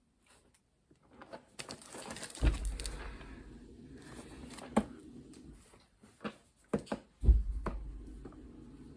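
Scattered knocks and clicks of objects being handled, with two heavy thumps about two and a half and seven seconds in, over a low steady hum.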